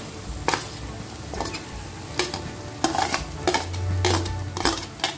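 Steel spoon clinking and scraping against a steel plate and a kadhai, about eight sharp knocks at an uneven pace, as chopped onions are pushed into hot oil. A frying sizzle runs underneath.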